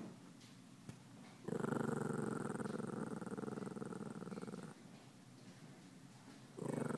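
Shih Tzu growling: one growl of about three seconds beginning about a second and a half in, and another starting near the end. It is the warning growl of a dog upset after grooming.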